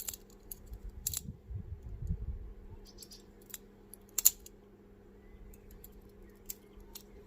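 Boker balisong training knife being flipped and rolled in the hand: a scattering of sharp clicks as the swinging handles knock against the blade and pins, about six in all, the loudest a little over four seconds in, with soft handling rustle in the first couple of seconds.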